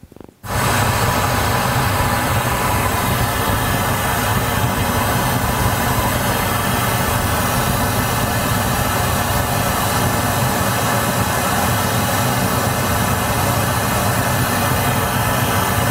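Steady test noise played loud through the Volvo's built-in car audio system for a cabin frequency-response measurement. It starts abruptly about half a second in and runs evenly while the subwoofer level is being turned down.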